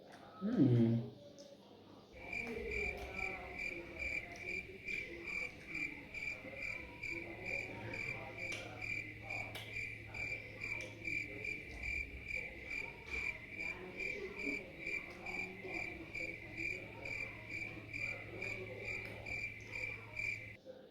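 A brief falling vocal sound about a second in, then a cricket chirping steadily at about two to three chirps a second over a low hum. The chirping starts and stops abruptly.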